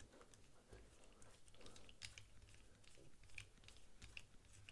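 Faint, irregular small clicks of a screwdriver bit working a folding knife's screw as it is tightened, with light handling of the knife.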